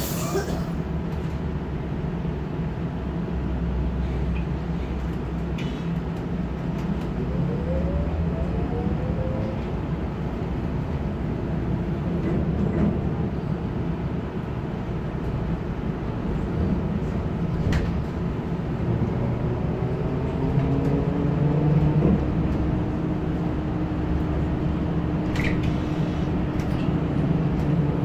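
Electric trolleybus heard from inside while moving: steady rumble of the running gear and road, with the traction motor's whine rising in pitch as it accelerates about a third of the way in and again past the middle, then holding a steady tone to the end. A few sharp clicks and rattles along the way.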